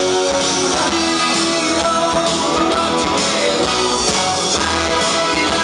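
Rock and roll music with electric guitar, played loud through a party DJ sound system.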